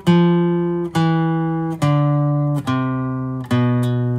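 Dolce TS-1E acoustic guitar playing a scale slowly downward, one picked note at a time. There are five single notes, a little under a second apart, each ringing until the next, and each step falls in pitch.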